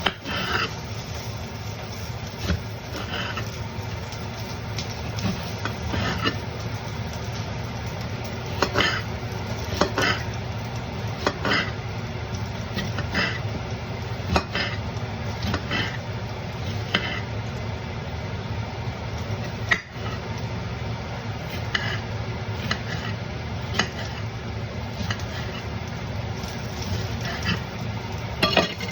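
Chicken frying in a pan with a steady sizzle while a utensil stirs it, knocking and scraping against the pan about every second or two.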